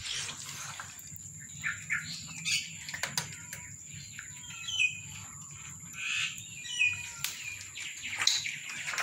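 Cats and kittens crunching dry kibble off a tile floor, with short clicking crunches, while small birds chirp in short bursts at several points.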